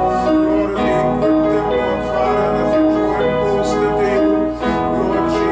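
Keyboard music playing slow, held notes that change every half second or so.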